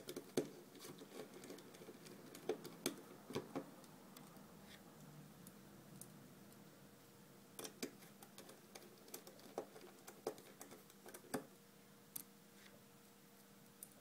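Irregular light clicks and taps of small plastic and metal parts being handled while the keypad's tiny screws are refitted with a small cross-head screwdriver. The clicks come in two busy spells, in the first few seconds and again from about eight to eleven seconds in.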